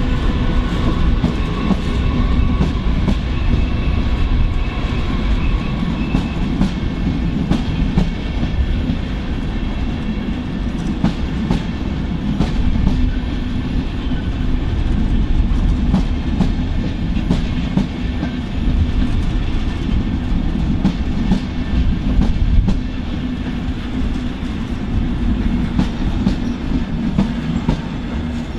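Deutsche Bahn Intercity coaches rolling slowly past, wheels clattering over rail joints and points with irregular sharp clicks. A thin whine runs through the first several seconds.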